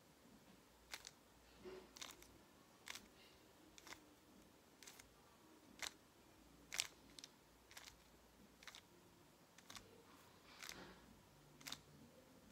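Faint plastic clicks of a stickerless 3x3 speed cube's layers being turned one move at a time, about one a second, as a T-perm is worked through slowly.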